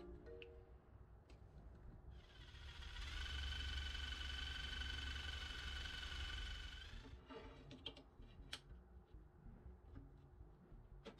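Cordless drill running for about five seconds with a steady whine, boring a hole through a short plastic pipe spacer. A few light clicks of handling follow after it stops.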